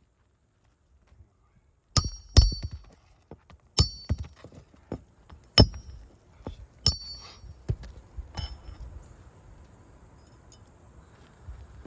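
Sharp metallic clinks and knocks, about seven over six seconds, each with a short ring, from a metal tool working under asphalt roof shingles to lift them loose, then fading to a faint hiss.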